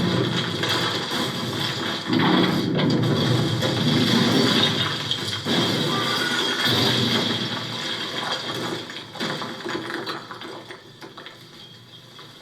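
A film soundtrack played through the TV's built-in speakers: a dense, rushing wash of action-scene noise that fades away over the last few seconds.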